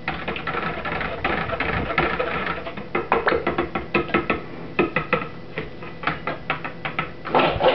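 Background music with a rhythmic strummed guitar.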